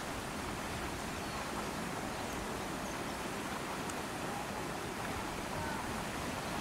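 Steady outdoor ambient noise, an even wash with no distinct events, with a couple of faint short chirps.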